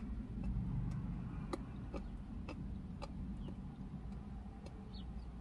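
Popping candy in a piece of Hershey's chocolate crackling in a closed mouth: small sharp pops, roughly two a second and unevenly spaced, over a low steady hum.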